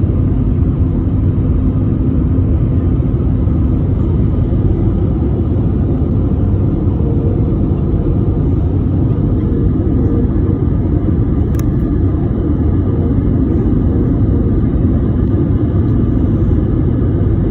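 Steady low rumble of an Airbus A320's engines and airflow, heard inside the passenger cabin, with a brief click about eleven seconds in.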